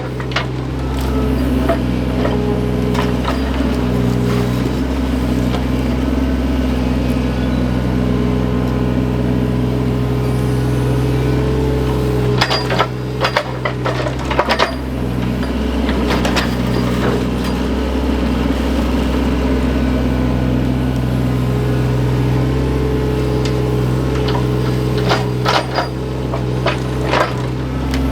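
Diesel engine of a small earthmoving machine running steadily under working load, with clusters of clanks and knocks about twelve seconds in and again near the end.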